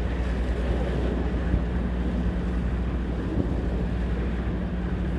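Wind blowing across the microphone over a steady low machine hum. A second, higher hum joins about a second and a half in.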